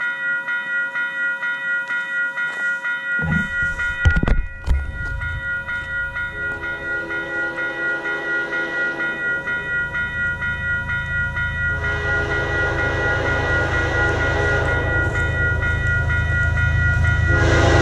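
Railroad crossing bell ringing in a rapid, even pulse while an approaching Kansas City Southern diesel train sounds its multi-note horn in long blasts from about six seconds in. The locomotives' low rumble grows steadily louder toward the end, and there is a brief thump about four seconds in.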